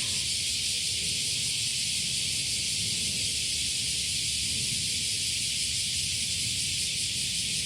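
Chorus of cicadas buzzing in a steady, continuous high drone, with a low rumble underneath.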